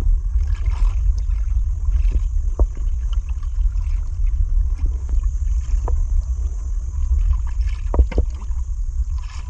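Wind buffeting the microphone in a steady low rumble over open sea, with a few faint taps.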